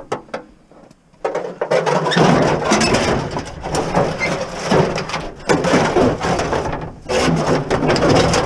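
Lengths of metal gutter clattering and scraping against each other and the van's cargo floor as they are shoved into the back of a minivan. A few light knocks come first, then a continuous rattling clatter from about a second in.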